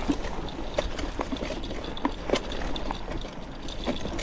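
Mountain bike tyres rolling over dry fallen leaves and dirt, with irregular crackles and snaps over a steady low rumble.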